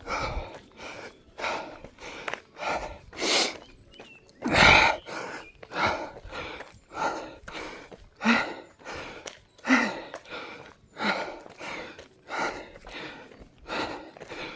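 A person breathing hard and fast from exertion, panting in a steady rhythm of about three breaths every two seconds, with one louder gasp about five seconds in.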